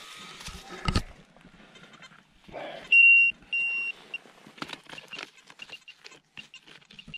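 Metal detector beeping: two held high beeps, then a run of short beeps at the same pitch, about five a second, marking a buried target close by and not deep. Knocks and scrapes of digging in hard, stony ground come first.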